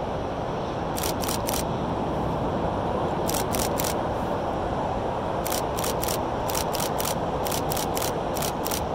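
DSLR shutter firing in quick bursts of two or three frames, about six bursts, each shot a sharp mechanical click. Underneath is a steady rushing noise.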